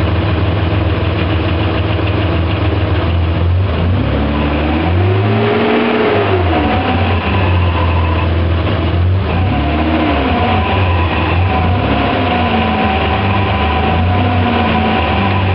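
BMW E34 535i's 3.4-litre straight-six running, with a whining tone over the steady engine note that rises and falls in pitch about five times. This is the weird noise the owner puts down to the gearbox.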